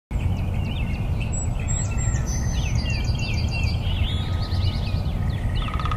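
Several birds chirping and calling in short, quick rising and falling notes over a steady low rumble. Near the end a fast, even pulsing trill joins in.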